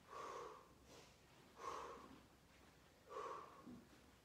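A person exhaling hard with exertion, three short faint breaths about a second and a half apart, in time with the exercise repetitions.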